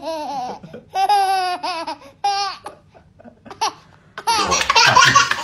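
A baby laughing in short, high-pitched bouts of giggles with gaps between them, then louder, busier laughter near the end.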